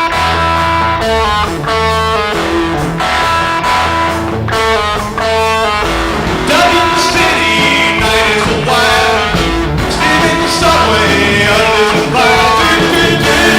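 Rock music with guitar, a full band playing at a steady loud level.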